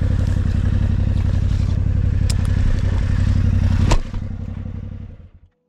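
Yamaha Ténéré 700's parallel-twin engine idling steadily. A sharp knock about four seconds in, where the engine sound cuts off, and the remaining noise fades away.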